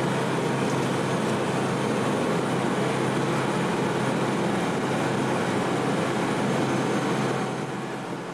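Steady aircraft noise, engine and rushing air, heard from aboard while flying low over the lagoon; it fades out near the end.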